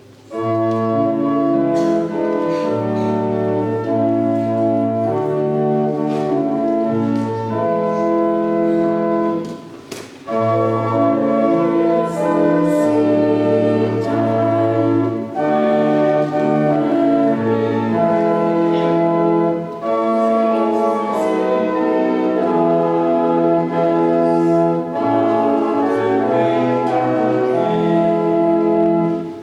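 Church organ playing a hymn in sustained chords, phrase by phrase, with a short break about ten seconds in.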